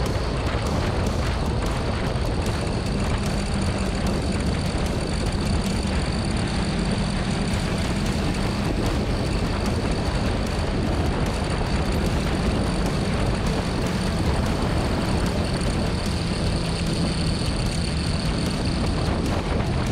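Motorcycle engine running at speed under heavy wind rush on the microphone, at a steady loudness throughout.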